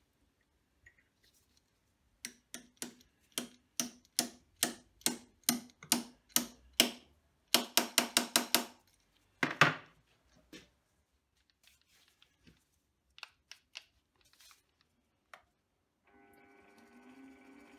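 Metal clicking of a lathe's three-jaw chuck being tightened with its chuck key: a steady run of clicks about three a second, then a quick flurry and one louder knock. About sixteen seconds in, the Optimum metal lathe's motor starts and runs with a steady hum.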